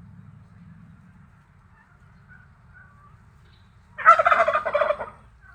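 A turkey gobbles once, a loud rapid rattling call lasting about a second, some four seconds in, after faint bird chirps.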